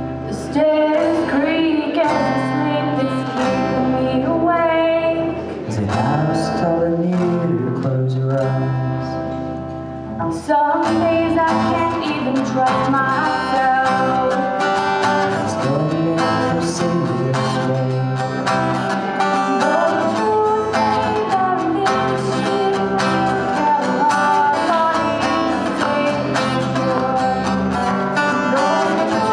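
Live acoustic guitar strummed with a woman singing. About ten seconds in, the music thins briefly, then comes back with a strong strum and fuller playing.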